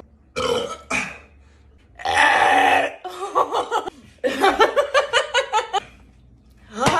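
A person burping several times after chugging a carbonated soda, the loudest burp about two seconds in, then a stretch of laughter.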